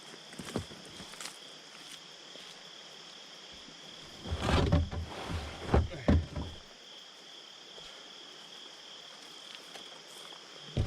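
Insects giving a steady, high-pitched buzz, one constant tone with a second, higher band above it. About four seconds in, a short cluster of knocks and thumps stands out above it for two or three seconds.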